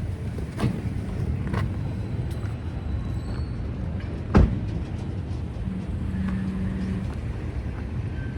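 Steady low rumble of idling vehicles, with a few short sharp knocks, the loudest about four and a half seconds in.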